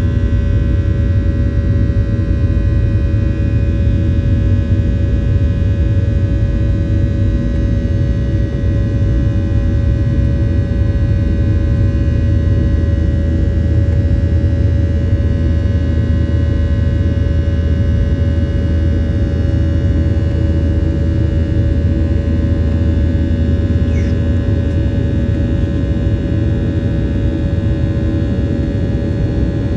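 Boeing 737-800's CFM56-7B turbofan engines heard from inside the cabin during the climb after takeoff: a steady low rumble with a steady fan hum and several high whining tones above it.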